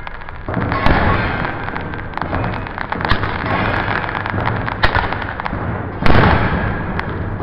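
Fireworks going off: dense crackling and pops with several sharp bangs, the loudest about six seconds in.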